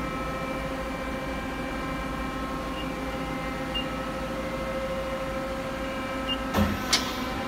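Mori Seiki SL-65A CNC lathe running with its geared-head spindle turning the 21-inch hydraulic chuck: a steady hum with a whine of several steady tones. Near the end there are a couple of loud knocks.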